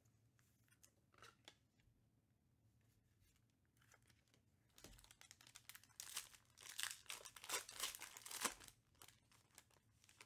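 Foil wrapper of a 2021 Panini Prizm UFC trading-card pack being handled, then torn open and crumpled by hand. A few faint clicks come first; the tearing and crinkling starts about five seconds in and lasts about four seconds.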